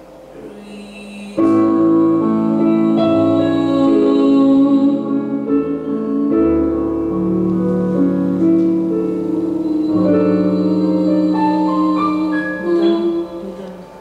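Slow jazz ballad backing track led by piano, playing sustained chords that change every second or two; it comes in fully about a second in.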